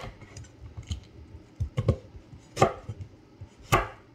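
Santoku knife cutting through a whole onion and striking a wooden cutting board: several sharp, irregularly spaced chops as the ends are cut off.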